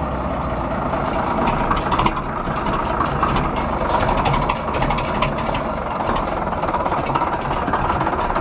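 A 1953 International Harvester TD20 bulldozer's 750-cubic-inch straight-six diesel idling very low, throttled down to about 100 RPM. The owner takes so slow an idle as a sign of good compression and a big flywheel.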